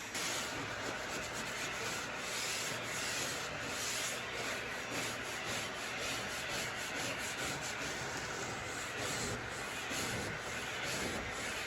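Abrasive rubbing on a wooden dresser surface in quick back-and-forth strokes, like hand-sanding or scuffing with a scouring pad.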